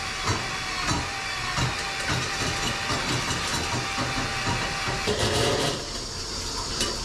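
Ryobi cordless drain snake running in a bathtub drain, its motor giving a steady whine over a hiss as the turning cable clears the trap. The whine stops about five seconds in as the cable is drawn back out.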